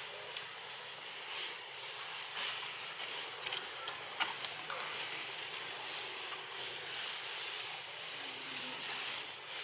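Steady high-pitched hiss of outdoor background noise, with a few faint short clicks.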